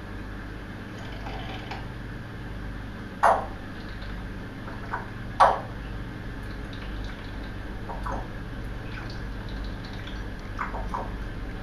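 African grey parrot making short, sharp pops and clicks: two loud ones about three and five seconds in, with softer ones scattered between, over a low steady hum.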